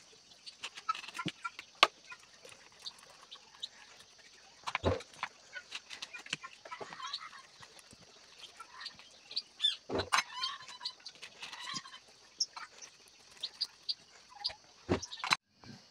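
Spoon scraping passion fruit pulp into a blender jar: irregular clicks and scrapes, with three louder knocks about five seconds apart.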